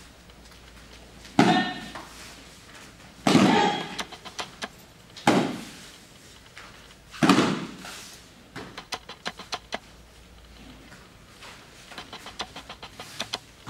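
A taekwondo student performing a form: four loud, sharp kihap yells about two seconds apart. After them come runs of quick sharp snaps and slaps from strikes and footwork.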